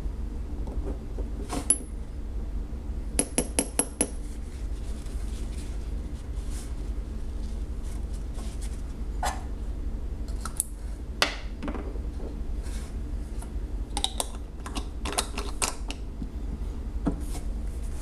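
Small clicks and glassy clinks as a Lamy 2000 fountain pen is handled at a glass ink bottle. There is one ringing clink about two seconds in and a quick run of four or five clinks around four seconds in, then scattered clicks and taps as the pen is capped and the bottle closed. A low steady hum runs underneath.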